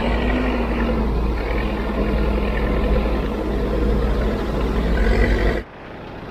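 A motor vehicle running along a road, a steady rumble with a faint wavering engine drone. It cuts off suddenly about five and a half seconds in, leaving a much quieter background.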